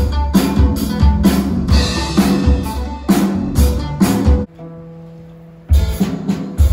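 Music with a drum kit keeping a steady beat of about two strong hits a second, with bass and guitar. Just past the middle the drums stop for about a second over a held low note, then come back in.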